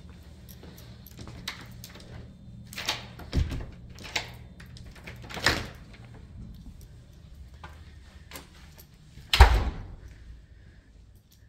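A door being opened and handled, with a series of clicks and knocks, then one loud thump about nine seconds in.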